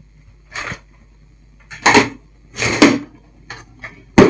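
Handling noise on a workbench: a few short rustling, hissing bursts, then one sharp click near the end.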